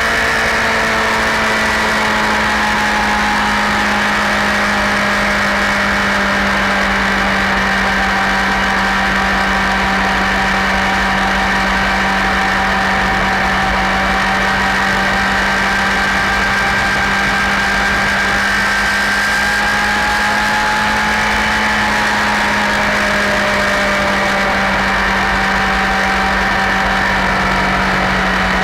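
Honda CBR1000RR SC57 inline-four engine running at a steady, held speed: one constant drone with no revving up or down.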